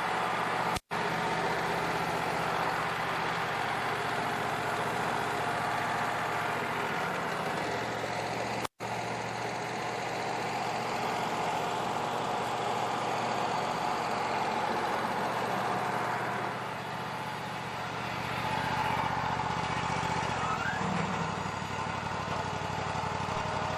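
Band sawmill's engine running steadily as the blade cuts through a pine log. The sound drops out to silence twice for an instant and dips in level a little after two-thirds of the way through.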